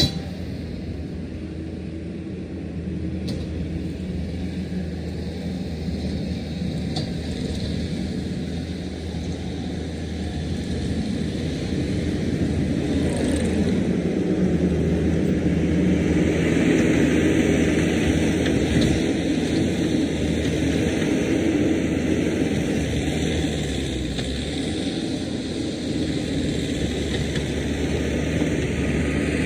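Diesel engine of a piece of land-clearing machinery running steadily, growing louder toward the middle and easing off again, with a few faint knocks.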